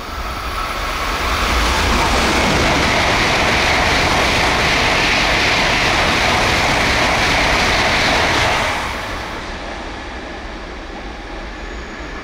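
N700-series Tokaido Shinkansen train passing through the station at high speed without stopping: a loud rush of wheel and air noise that swells over about two seconds, holds steady for about seven, and drops off quickly about nine seconds in as the end of the train goes by.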